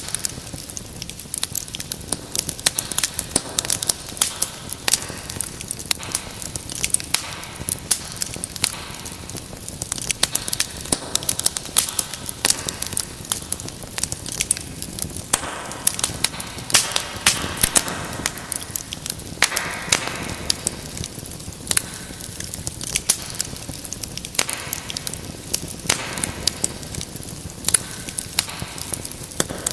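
Wood fire burning in a fireplace, crackling with many irregular sharp pops over a steady hiss, with brief hissing flare-ups about two-thirds of the way through.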